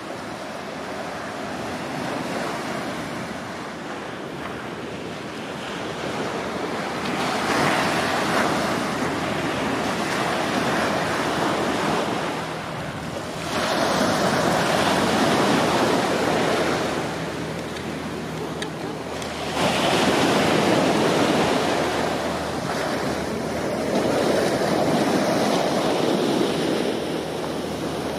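Surf breaking on a sandy beach: a steady wash of noise that swells with each breaking wave, four surges roughly six seconds apart.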